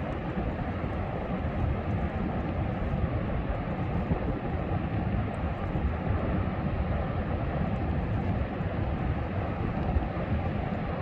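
Ocean surf and wind in a steady, deep rush with no distinct breaks or events.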